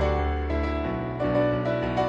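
Background piano music: a run of keyboard notes over a held bass line that moves to a new note about a second in.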